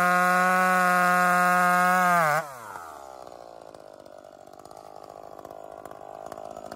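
Modified Echo 2511 chainsaw's 25cc two-stroke engine revved high and held steady. About two seconds in the throttle is released and the revs fall quickly to a quiet, steady idle.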